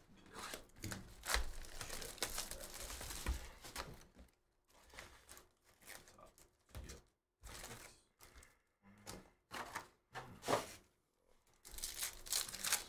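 Crinkling and tearing of wrapping as a trading-card hobby box is opened and its foil card packs are handled. It is continuous for about the first four seconds, then comes in short rustles, with a pack torn open near the end.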